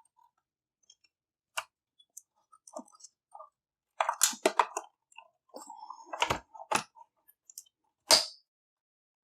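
Scattered clicks, taps and knocks of plastic and metal console parts being handled during disassembly. A quick run of them comes about four seconds in, and a single sharp click sounds near the end.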